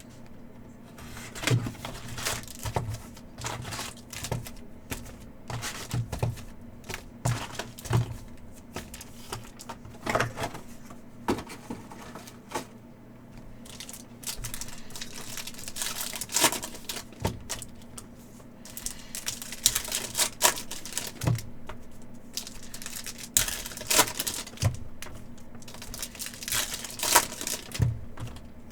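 Upper Deck hockey card packs being torn open and their foil wrappers crinkled, with the cards clicking and sliding as they are handled; irregular clicks and rustles throughout.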